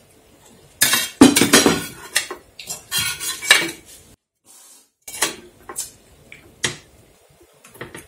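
Metal ladle clinking and scraping against a stainless-steel hot pot while broth is served, with spoons and dishes clattering. A dense run of clinks starts about a second in, then after a short pause come scattered single clinks.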